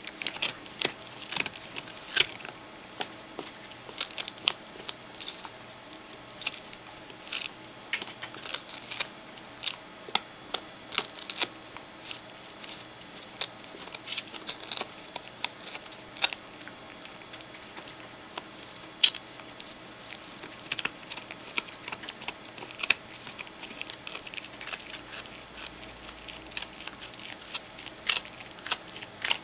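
Shetland Sheepdog gnawing a large rawhide bone: irregular sharp clicks and crunches of teeth working the hide, in quick runs with short pauses.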